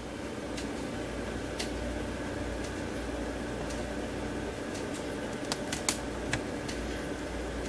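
A handful of faint, sharp clicks from the control knobs of a Siglent SDS1202X-E oscilloscope as the trigger level is turned, several close together in the second half, over a steady background hum.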